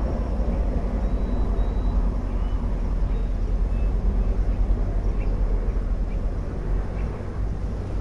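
Steady low rumble of wind buffeting the microphone, with a few faint high chirps.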